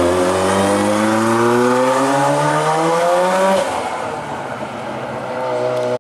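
Ford RS200 rally car's turbocharged four-cylinder engine accelerating hard, its note rising steadily for about three and a half seconds, then the pitch drops abruptly and it runs on lower and a little quieter.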